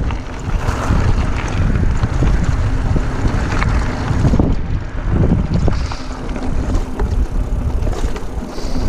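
Mountain bike rolling fast over a gravel trail: tyres crunching over loose stones, with the bike knocking and rattling over bumps, and wind buffeting the microphone.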